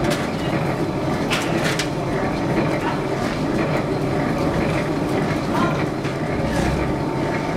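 Automatic wall rendering machine running on its mast, a steady mechanical noise with a few sharp knocks.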